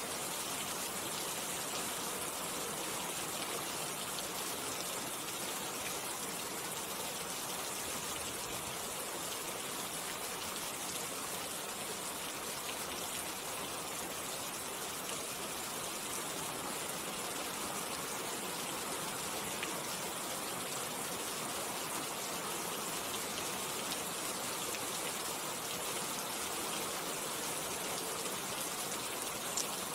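Steady rainfall: an even, unchanging hiss of rain with faint scattered drop ticks.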